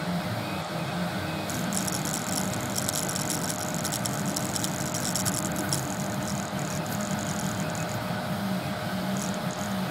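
Kossel Mini delta 3D printer printing: its stepper motors whir in short notes that keep changing pitch as the print head moves, over a steady hum from the hotend cooling fan, with a spell of fine high clicking in the middle.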